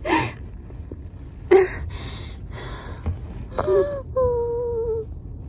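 A woman crying in pain after surgery: sobbing breaths and gasps, then a drawn-out whimpering moan sliding slightly down near the end. A steady low car rumble runs underneath.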